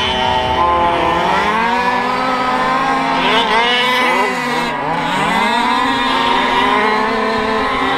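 Several 1/5-scale petrol RC racing trucks' small two-stroke engines revving up and down as they race. Their overlapping pitches rise and fall and cross one another.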